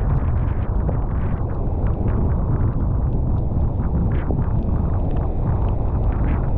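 Strong wind buffeting the camera's microphone in a steady low rumble, with the wash of big waves mixed in.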